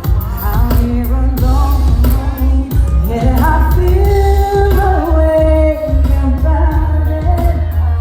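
Live R&B song: a singer's melodic vocal line, with held and sliding notes, over a band with a heavy, pulsing bass.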